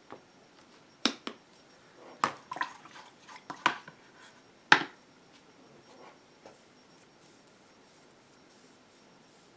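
Sharp clicks and light clinks from acrylic-painting supplies being handled on a craft table, a brush and plastic paint bottles among them, in a cluster of about half a dozen over the first five seconds; the loudest comes near the five-second mark.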